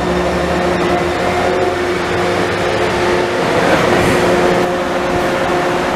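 Taipei Metro train running, a steady electric motor hum over wheel-on-rail rumble, with a short dip in the hum about three and a half seconds in.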